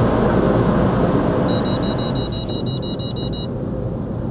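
Automatic car wash machinery and water spray running steadily, heard from inside the car's cabin. For about two seconds in the middle, a rapid high-pitched beeping comes in over it, most likely the car's parking sensor warning that something is close.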